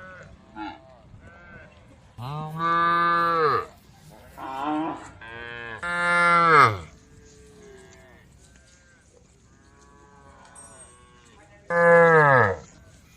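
Cows mooing: a run of loud, drawn-out moos in the first seven seconds, fainter lowing in between, and another loud moo near the end, each dropping in pitch as it trails off.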